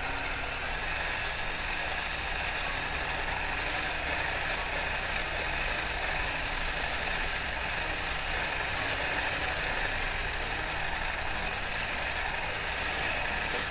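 Electric hand mixer running steadily, its whisk beaters churning a light egg-yolk and sugar foam in a glass bowl.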